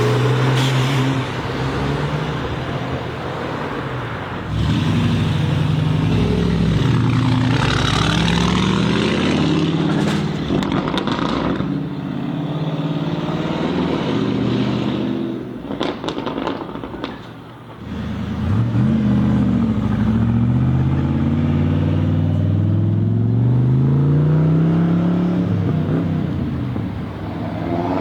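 Sports car engines revving and accelerating, the pitch climbing and dropping in several sweeps, with a long rising pull through the gears in the second half.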